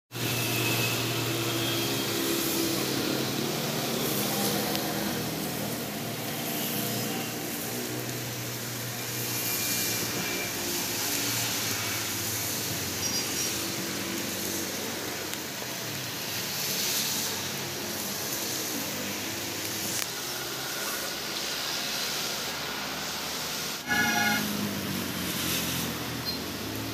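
Town ambience: a steady hiss with the low, wavering hum of engines coming and going, which fits passing traffic. A sudden knock followed by a brief high-pitched tone comes a few seconds before the end.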